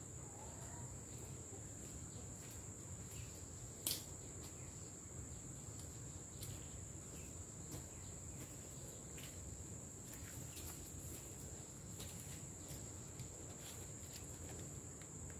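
Insects buzzing in a steady, high-pitched drone, with a sharp click about four seconds in and a few faint clicks and rustles.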